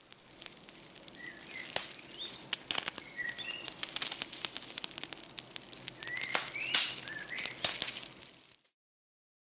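Small birds chirping in short calls that glide up and down, over a dense run of sharp crackles and clicks. It fades in at the start and stops about a second before the end.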